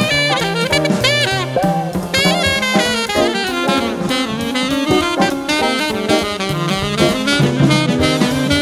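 Jazz recording: alto saxophone playing quick lines with bent notes, over a bass line and drum kit.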